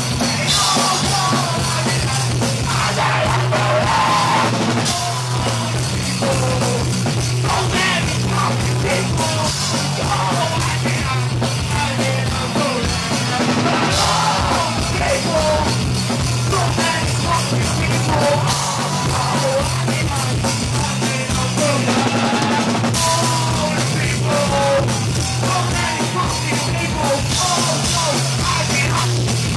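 Live punk rock band playing loud: electric guitar, bass and drum kit, with a singer shouting vocals over the top.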